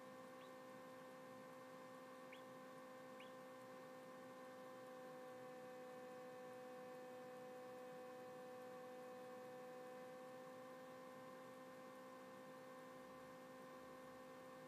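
Steady, faint electrical hum of a running egg incubator. A few faint, short peeps in the first few seconds come from a hatching chick inside its pipped egg.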